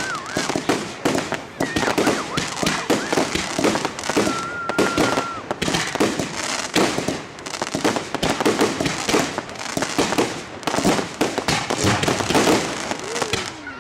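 Fireworks going off in a rapid, continuous string of bangs and crackles.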